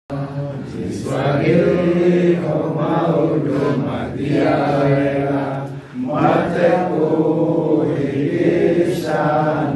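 A group of men singing together, with a brief break in the singing about six seconds in.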